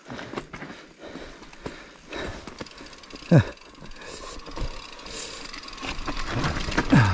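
Mountain bike rattling and clattering over a steep, rough trail, with irregular knocks from the bike, and two short sounds falling sharply in pitch, one about three seconds in and one near the end.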